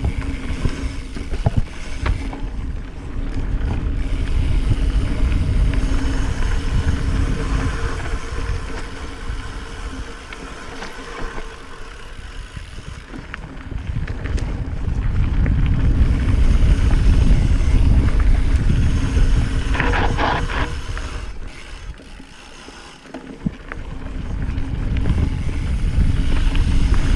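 Wind rumble on a small action camera's microphone and tyres rolling over dirt as a mountain bike descends singletrack; the noise swells and fades with speed. A brief higher-pitched buzz comes about two-thirds of the way in.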